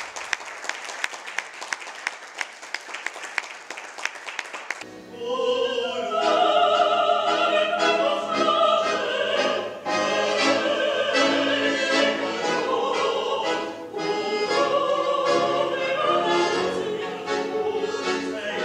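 Evenly spaced sharp percussive beats, about three a second, for the first five seconds; then, after an abrupt change, a soprano and tenor singing in operatic style with accompaniment that includes an accordion.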